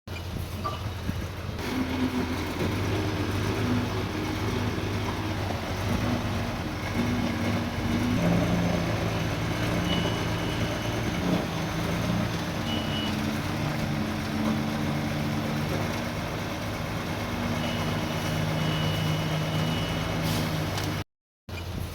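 Heavy diesel earthmoving machinery running, its engine note shifting up and down with load. A thin high tone sounds briefly a few times, and the sound cuts out for a moment near the end.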